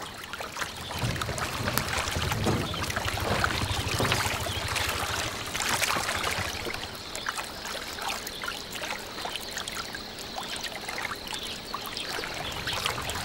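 Water trickling and splashing as a wooden boat is pushed through the water with a bamboo pole.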